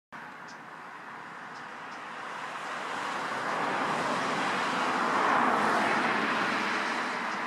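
A vehicle passing: a steady rushing noise that starts abruptly, swells to its loudest about five seconds in, then eases off.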